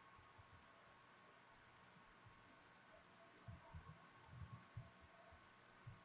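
Near silence, with about five faint computer mouse clicks spread through it and a few soft low thumps in the second half.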